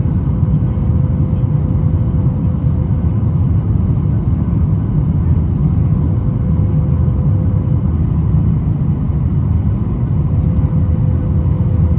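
Steady cabin noise inside a Boeing 737 MAX 8 in its climb after takeoff: a deep, even rumble of the CFM LEAP-1B engines and rushing airflow, with a faint steady hum above it.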